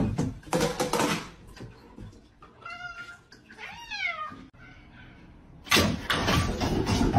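A domestic cat meowing twice in the middle, each call arching in pitch. Louder bursts of noise come in the first second and again near the end.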